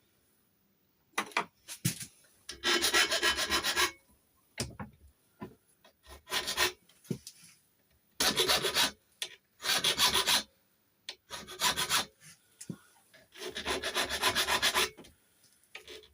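Hand file rasping across a cut-down key blank in about six separate bursts of strokes, some short, some over a second long, with light taps and pauses between them. The key's bit is being tapered during lever-lock impressioning.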